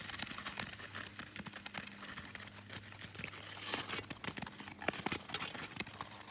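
Ice skate blades striding and gliding over frost-covered natural lake ice: a scraping hiss broken by many small clicks and crackles.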